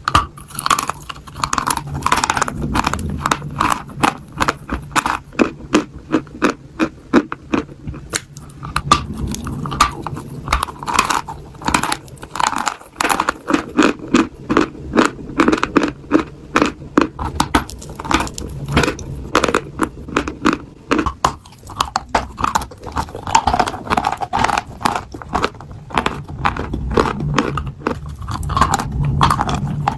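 A block of white chalk being bitten and chewed: a dense run of sharp, crisp crunches as it breaks between the teeth.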